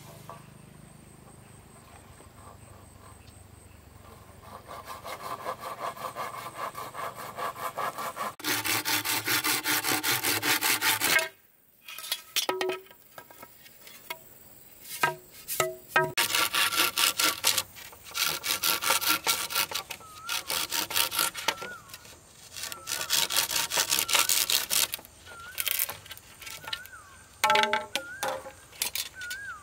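Quick back-and-forth sawing strokes on wood. They build up over the first several seconds, break off suddenly near the middle, then resume in shorter spells.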